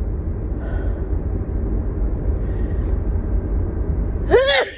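A woman with a head cold sneezes once, loud and voiced, about four seconds in, over the steady low rumble of a car cabin on the road. Two faint breaths come earlier.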